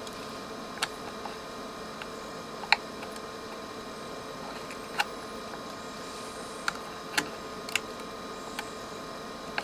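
Scattered light clicks and taps as transformer leads are desoldered from a circuit board with a soldering iron, about seven in all, over a steady hum.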